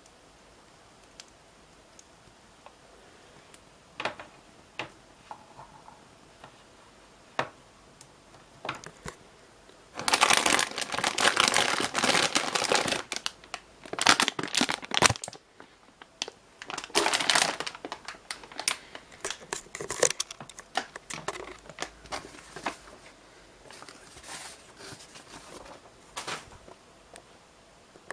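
Plastic packaging crinkling and rustling as a power supply is unpacked from its box. Occasional light clicks come first, then two loud spells of crinkling about ten and seventeen seconds in, then lighter handling noises.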